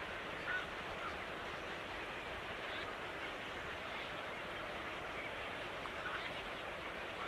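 Steady hiss of outdoor background noise with a few faint, brief bird chirps scattered through it.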